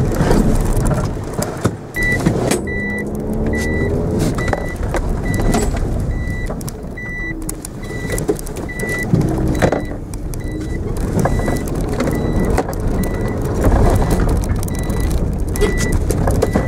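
Mitsubishi Mirage engine and road noise heard from inside the cabin, the engine revving up briefly a few seconds in. From about two seconds in, an electronic warning chime beeps steadily, about one short beep every half second or so.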